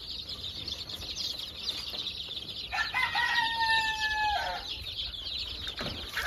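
A brood of Basilan native chicks peeping constantly in a dense high chatter. About three seconds in, a rooster crows once, a held call of roughly two seconds.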